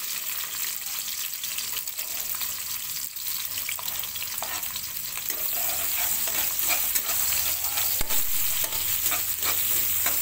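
Chopped onion and shallots sizzling in hot oil in a nonstick wok, with a spatula scraping and clicking against the pan as they are stirred; the stirring clicks come more often in the second half.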